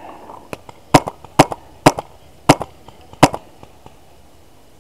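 Paintball fire: five sharp, loud cracks at uneven gaps of about half a second, with a few fainter pops around them.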